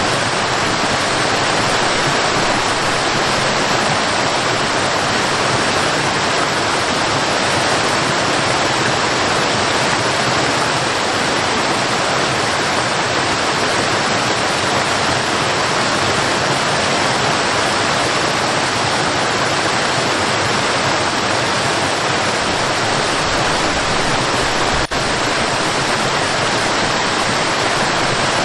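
Waterfall: water pouring and splashing in a steady, even rush. The level dips for an instant with a faint click near the end.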